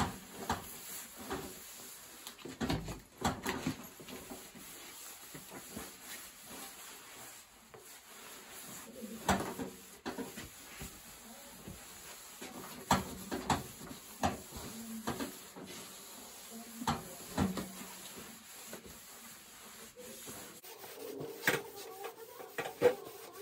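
Cloth rag wiped over a vintage VW Beetle's steel decklid, with irregular light knocks and clicks of hands and cloth against the sheet metal, a few of them sharper.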